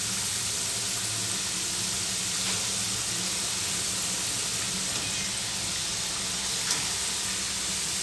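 Oil sizzling steadily as bow-tie pieces of maida dough (shankarpali) deep-fry in a steel kadai, with a light tap late on.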